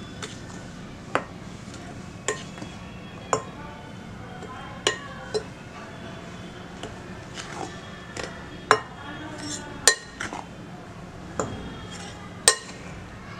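Steel spoon stirring wheat flour in a glass bowl, clinking against the glass about a dozen times at irregular intervals, some clinks ringing briefly.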